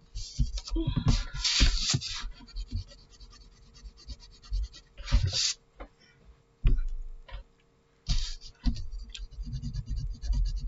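Graphite pencil scratching across drawing paper in several short bursts of shading strokes, with the sheet being shifted on the desk and small knocks and clicks between strokes, over a faint steady hum.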